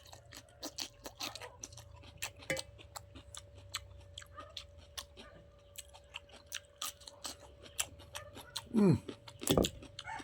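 Close-up chewing and crunching of a mouthful of cooked cabbage, with a few wet crunches a second over a faint steady hum. Near the end there is a louder falling sound and a heavy thump.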